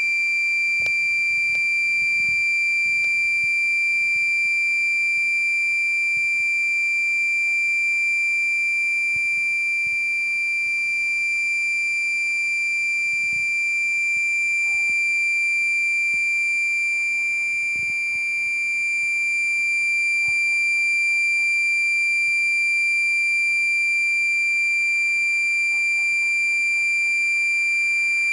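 A continuous high-pitched electronic tone, like a piezo buzzer, held at one steady pitch without a break.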